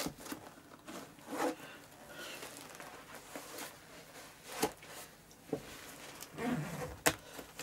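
A leather motorcycle sport boot being pulled on and fastened: rustling and rubbing of leather, a zip drawn about one and a half seconds in, and a few short sharp clicks and knocks near the end.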